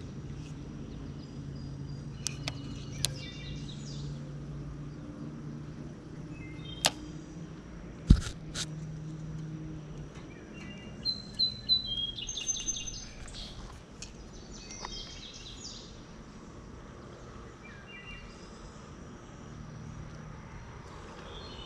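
Birds chirping in short scattered calls over a steady background of outdoor noise. A few sharp clicks cut through, the loudest about eight seconds in.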